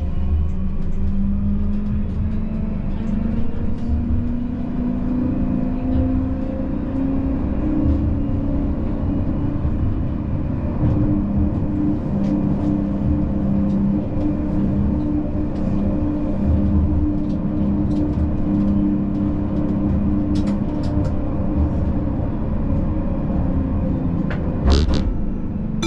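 Siemens Combino tram running along its rails. The traction motor whine rises in pitch over the first several seconds as the tram accelerates, then holds steady over a constant rumble of wheels on track. A few sharp clicks come near the end.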